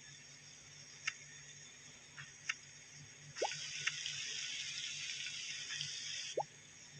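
Water drops plinking at intervals of about three seconds, with a few light clicks and a steady hiss for about three seconds in the middle.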